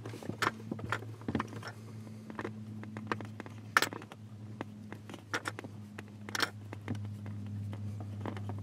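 Scattered clicks and taps from a RAM Tough-Claw clamp being fitted and tightened onto a vehicle seat rail, the sharpest about four seconds in, over a steady low hum.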